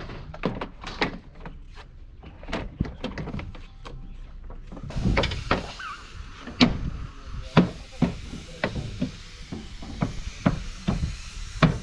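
Plastic inner door trim panel of a Mercedes truck cab door being pressed and tapped into place by hand: a string of irregular knocks and clicks, with a few louder thumps past the middle and near the end.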